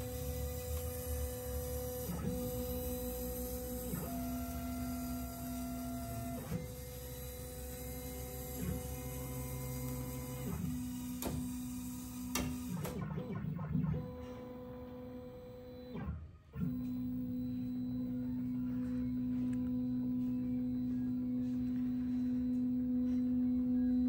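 Stepper motors of a CNC hot-wire foam cutter whining as the wire traces a cut: steady tones that jump to a new pitch every second or few as the axes change speed and direction. The sound drops out briefly about sixteen seconds in, then settles into one steady tone.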